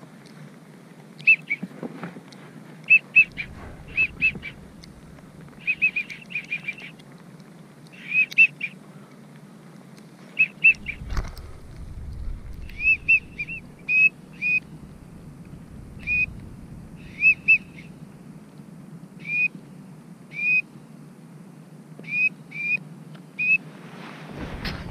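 Wigeon whistles: short, clear rising-and-falling whistles, mostly in twos and threes, repeated throughout. A low wind rumble on the microphone comes in briefly about eleven seconds in.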